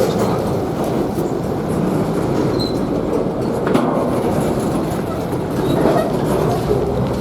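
A train rolling past: a steady rumble of wheels on the rails, with a sharp click about three and a half seconds in.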